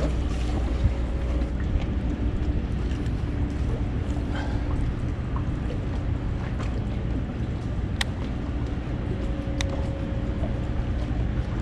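Steady low hum of a boat's motor, with a couple of sharp clicks in the second half.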